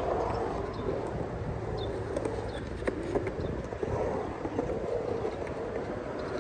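Skateboard wheels rolling on a concrete bowl, the rolling noise swelling and fading as the rider carves the walls, with a couple of sharp clacks about halfway through.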